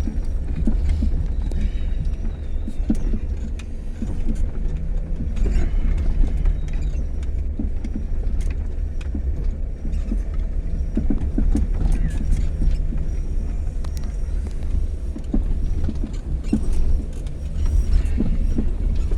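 A vehicle moving slowly over rough ground, with a steady low rumble and scattered knocks and creaks.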